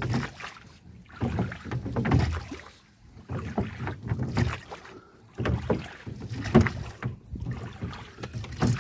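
Wooden oars of a rowing boat pulling through river water, a stroke about every two seconds.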